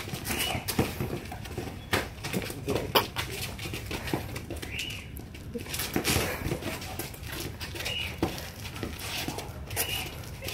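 Sparring: irregular knocks of boxing gloves landing, mixed with sneakers shuffling and scuffing on concrete.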